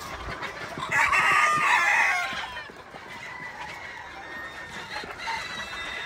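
A rooster crows once, starting about a second in and lasting about a second and a half, its call ending in a falling note, over chickens clucking.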